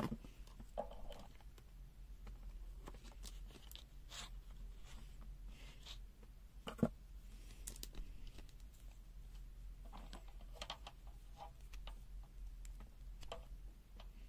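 Handling sounds from a multimeter and its test leads: scattered light clicks and faint rustling, with a sharper click at the very start and another about seven seconds in.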